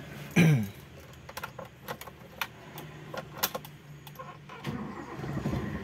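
Keys jangling and clicking at the ignition of a 1994 Toyota Kijang, with a loud short falling sound about half a second in. Near the end its 1.5-litre four-cylinder petrol engine is started and comes to a smooth run.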